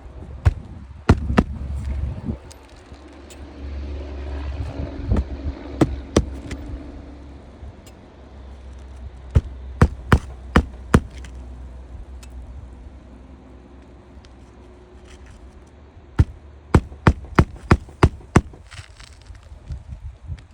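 Sharp hammer blows on roofing, in two quick runs of strikes (about four, then about seven) with a few single knocks between, over a low rumble in the first half.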